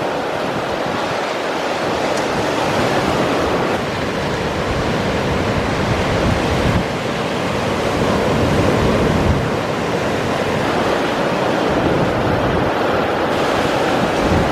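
Sea waves washing on the shore in a steady rush of surf, with wind buffeting the microphone.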